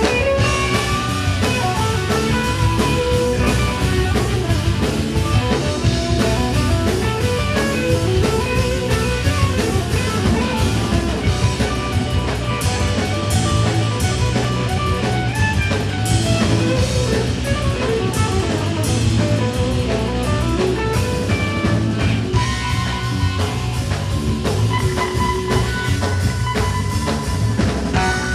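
A rock band playing an instrumental passage: guitar over a drum kit, with steady beat.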